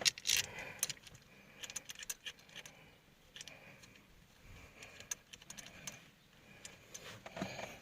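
Light, irregular metallic clicks and clinks as steering wheel bolts are tightened onto an aftermarket hub adapter, one after another.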